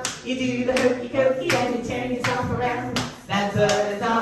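Hands clapping in a steady rhythm, about one clap every three-quarters of a second, while voices sing.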